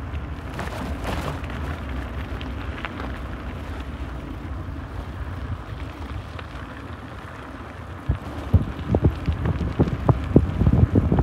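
Wind buffeting the microphone over a steady low rumble, with a run of irregular knocks and thumps from about eight seconds in.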